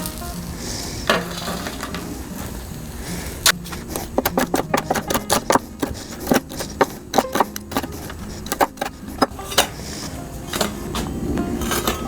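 Metal kitchen utensils clinking and clicking in a quick, irregular run of sharp taps, starting a few seconds in and stopping near the end.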